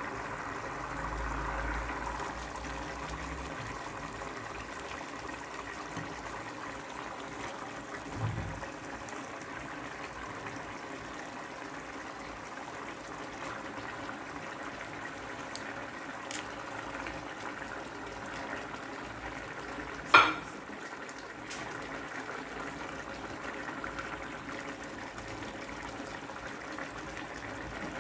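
A pot of coconut-milk curry broth boiling steadily, with a continuous bubbling. There are a few soft thumps, and about two-thirds of the way through comes one sharp clack, the loudest sound.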